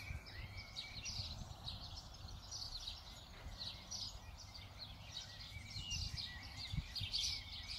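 Outdoor ambience of several small birds chirping and twittering over a low background rumble, with a couple of faint low thuds near the end.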